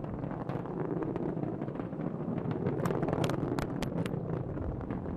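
Steady, deep rumble of a Falcon 9 rocket's nine Merlin 1D first-stage engines climbing away shortly after liftoff, with sharp crackles scattered through it, thickest about three to four seconds in.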